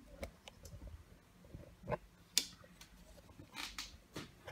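Faint handling noise from a handheld camera being moved about: a few soft clicks and short rustles, with one sharper click a little past the middle.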